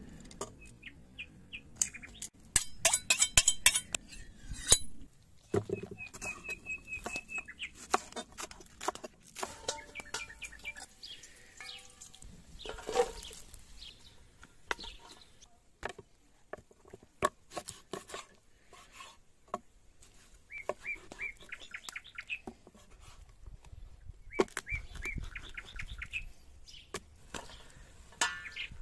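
Cooking sounds from a knife and an enamel pot: a quick run of cutting strokes on a wooden board, then scattered clinks and knocks as chopped onion and meat go into the enamel pot. Birds chirp now and then.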